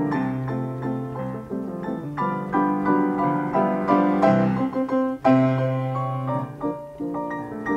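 Upright player piano playing an 88-note paper music roll, with a continuous run of rhythmic chords and runs.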